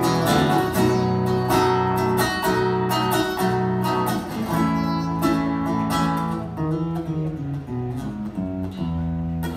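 Acoustic guitar playing an instrumental passage of strummed and plucked chords.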